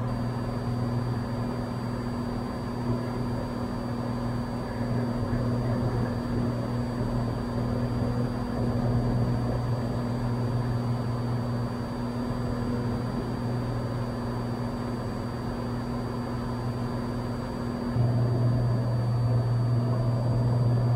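Steady drone of a Cessna 182's piston engine and propeller in level flight, with a constant low hum. It gets louder about three seconds before the end.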